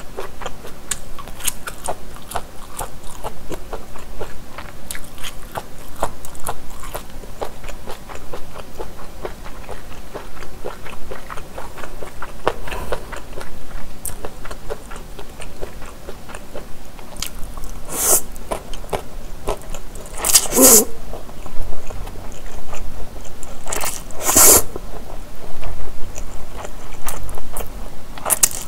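Close-miked wet chewing of japchae, stir-fried sweet-potato glass noodles with vegetables, with many small clicking mouth sounds. In the second half come several loud noodle slurps as bundles of the glass noodles are sucked into the mouth.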